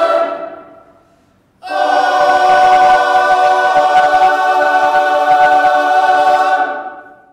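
Choir singing sustained closing chords: one chord fades out within the first second, and after a short break a final chord is held for about five seconds before dying away.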